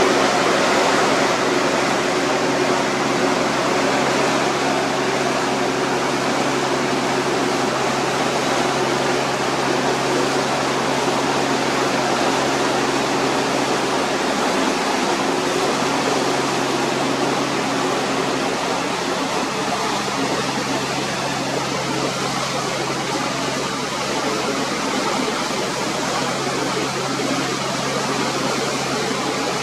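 Steady rushing noise of the sea, as a continuous white-noise bed. A low steady hum lies underneath and fades about two-thirds of the way through.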